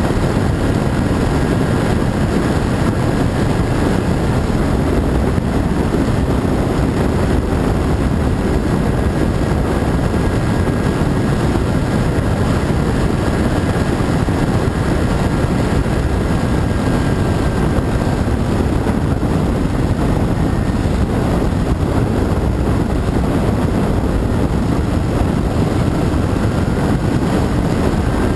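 Radio-controlled model airplane in flight: a steady rush of noise, heaviest in the low range, with the faint, thin, high whine of its motor and propeller running on top. The whine's pitch shifts slightly a few times.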